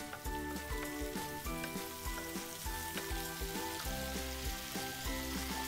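Tuna and tomato sauce, thinned with pasta cooking water, sizzling in a frying pan under background music with a steady beat.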